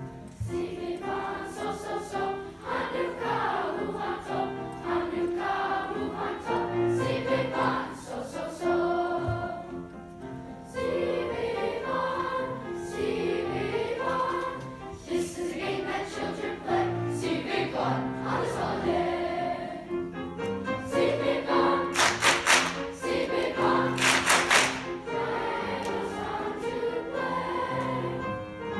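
A large school choir of children's voices singing with grand piano accompaniment. Two short, loud hissing accents stand out about three-quarters of the way through.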